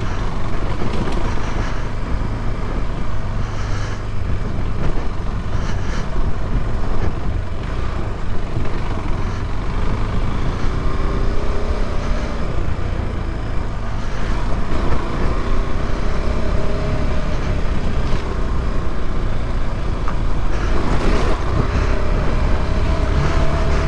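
KTM 390 Adventure's single-cylinder engine running as the motorcycle is ridden along a rough dirt track, its pitch rising and falling a few times with the throttle.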